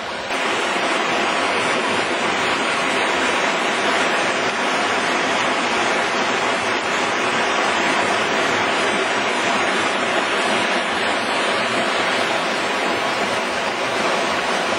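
Muddy stormwater runoff rushing and churning through a rocky ravine channel past stone-filled wire gabions, a loud steady rush of water in high flow after a hard rain. The rush steps up in loudness just after the start.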